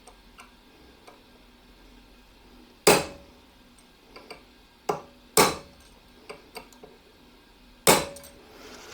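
Hammer blows driving out a small ball bearing from an angle grinder's rotor: three heavy strikes about two and a half seconds apart, each with a short metallic ring, and a few light taps between them. The bearing is stuck and is not yet out.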